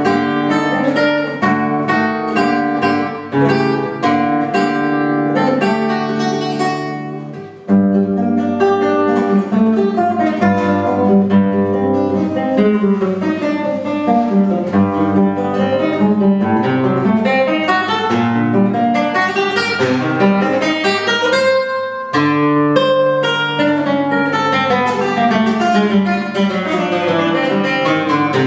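Solo classical guitar with nylon strings played continuously: quick runs and repeated figures of plucked notes, with short breaks between phrases, about a quarter of the way in and again about three-quarters of the way through.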